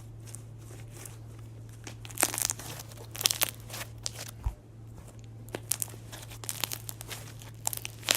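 Crunchy slime being squeezed and worked by hand, giving irregular crackling and popping clicks, with a steady low hum underneath and a single low thump about halfway through.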